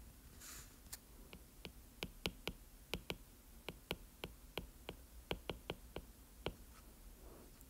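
Stylus tip tapping on a tablet's glass screen while writing letters by hand: a faint, irregular run of small clicks, about two to three a second.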